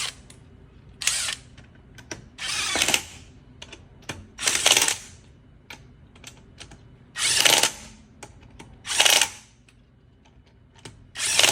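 A power tool running lug nuts onto a wheel's studs in six short bursts, about every two seconds, with light clicks between. This snugs the nuts down before the car is lowered and they are torqued by hand.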